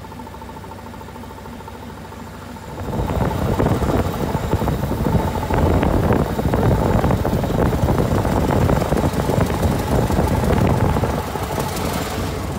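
An open veteran car's engine running while driving on the road, with road and wind noise; the sound becomes much louder and rougher about three seconds in.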